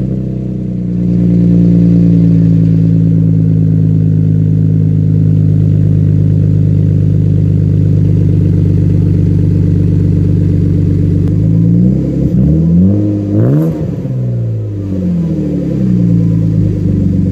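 BMW engine cold-started, catching right at the start and settling into a steady idle, heard through a new exhaust with an X-Force resonator in place of the muffler. From about two-thirds of the way through, the throttle is blipped several times, the pitch rising and falling with each rev.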